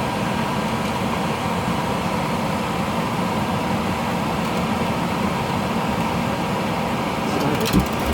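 Gas furnace blower fan running steadily, with a few clicks and a thump near the end.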